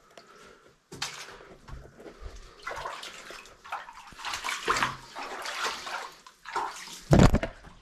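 Feet splashing and sloshing through shallow muddy water in irregular bursts, with a loud low thump near the end.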